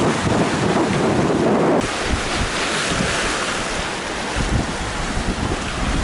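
Strong wind buffeting the microphone over the rush of breaking waves on rough open sea. The sound changes abruptly about two seconds in.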